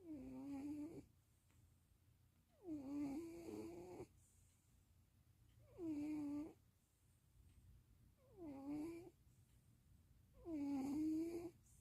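Sleeping cat snoring: five snores about every two and a half seconds, each lasting about a second and carrying a clear humming pitch.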